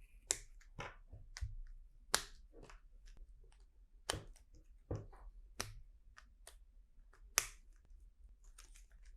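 Plastic LEGO pieces clicking as they are handled and pressed together: a dozen or so sharp, irregular clicks with short pauses between them.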